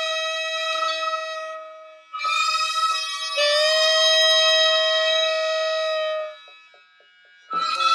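Japanese transverse bamboo flute playing slow, long-held notes in a gagaku-style melody. The phrases break off twice, and a new note comes in near the end after a short pause.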